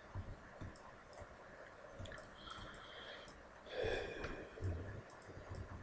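Faint, scattered clicks of a computer mouse and keyboard, with a short breathy sound about four seconds in.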